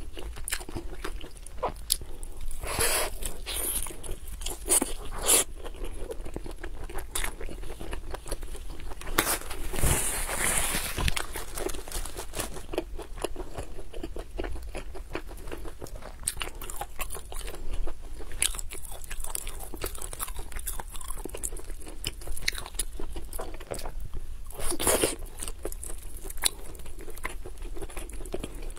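Close-miked chewing and biting of roast chicken legs, with many small mouth clicks and a few louder crunches of the browned skin. Now and then the meat is pulled apart by hand.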